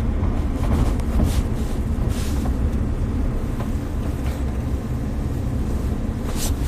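Steady low road and engine rumble of a moving vehicle, with a few brief hissing swells.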